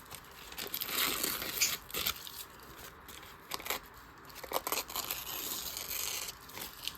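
A thin deli-paper gel print rustling and being torn by hand in a series of short, irregular rips and crinkles.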